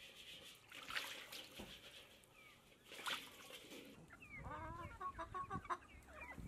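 Water splashes twice as a hand works in a metal basin of milky water. From about four seconds in, a flock of chickens clucks with many short calls.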